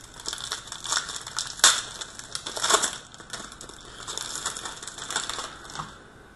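Plastic wrapper of an Upper Deck Ice trading card pack crinkling and crackling as it is torn open by hand, with a few sharp, louder crackles.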